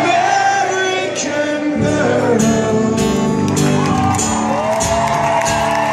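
Live acoustic guitar strumming with singing and crowd voices in a concert hall, in the closing chorus of a rock song, with a long held vocal note near the end.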